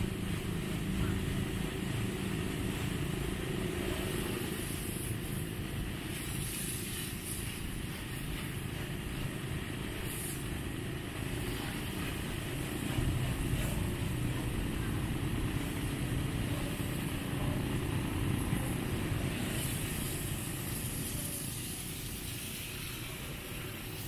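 A motor engine running steadily, a low rumble that holds at about the same level, a little louder around the middle and easing slightly near the end.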